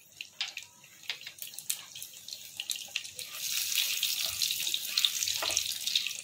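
Hot desi ghee sizzling and crackling around a bay leaf and hing (asafoetida) in a nonstick kadhai as it is stirred with a spatula, getting louder about three seconds in.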